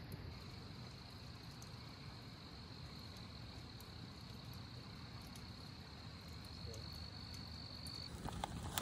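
Crickets trilling steadily at night, one continuous high tone over a faint low hiss, cutting off suddenly near the end.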